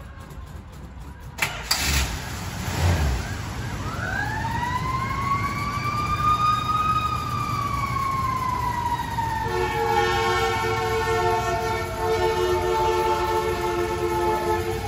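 Passing fire truck: its siren wails up and slowly falls, then from about ten seconds in comes a long horn blast in steady tones, broken briefly twice, over a low rumble. A few sharp thumps near two to three seconds in are the loudest sounds.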